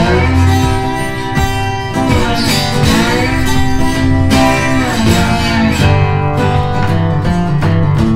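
Background music led by strummed acoustic guitar, in a country style.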